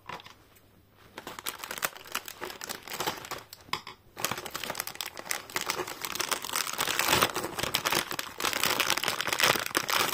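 Thin clear plastic bag crinkling as it is handled and pulled at: a dense run of irregular crackles that starts about a second in, pauses briefly around four seconds, and is loudest near the end.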